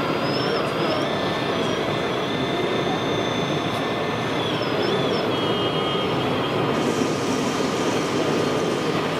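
Thin electric whine of a scale RC excavator's hydraulic pump, shifting up and down in pitch as the boom and demolition jaws move, over the steady din of an exhibition hall. A brief hiss about seven seconds in.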